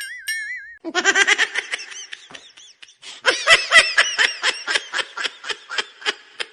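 High-pitched laughter in quick, even bursts, about four a second, starting about a second in and easing briefly before picking up again. It opens with a short warbling, whistle-like tone.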